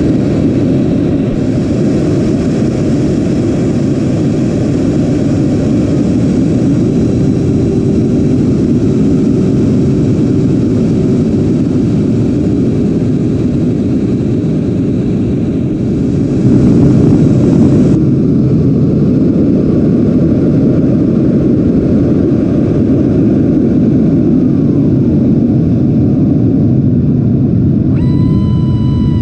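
Wind rush and electric ducted fan noise from a Freewing A-10 RC jet with 90 mm fans in fast, low flight, picked up by a camera inside its cockpit. It is a loud, steady rushing noise with a faint steady whine through the middle, and it swells briefly about two-thirds of the way through.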